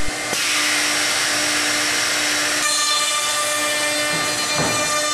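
High-speed router spindle of a CNC stair router running and cutting into a pine stringer, a steady machine whine. About two and a half seconds in, a higher whine joins as the bit cuts into the board, then drops away near the end.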